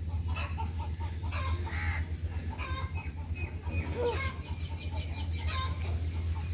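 Chickens clucking, with short calls now and then, over a steady low hum.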